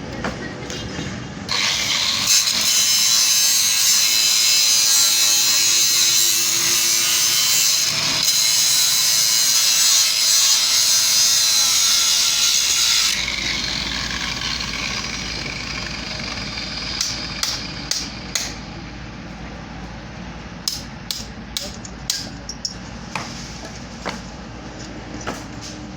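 Angle grinder cutting, a loud high grinding noise starting about a second and a half in and stopping abruptly about halfway through. After that, a lower steady hum with a series of sharp knocks and clicks.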